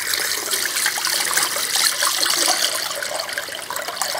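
Water pouring steadily, filling the water container that feeds a camper van's sink pump.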